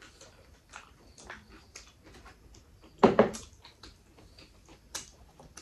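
Close-miked eating sounds: soft wet clicks and smacks of fingers scraping mutton gravy from a bowl and mixing it into rice, with one louder knock about three seconds in.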